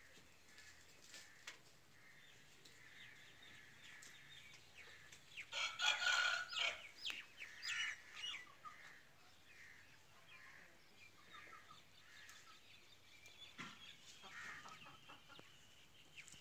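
Aseel chickens clucking in short repeated calls, with one loud rooster crow lasting about two seconds roughly six seconds in.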